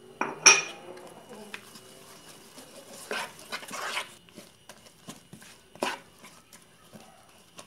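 A dog barking, with the sharpest, loudest bark about half a second in and more barks a few seconds later. Under it, a plastic spoon stirs grated carrot and shredded cabbage in a bowl with soft scraping and squelching.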